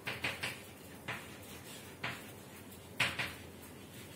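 Chalk writing on a chalkboard: a series of short strokes and taps at uneven intervals as a word is written out.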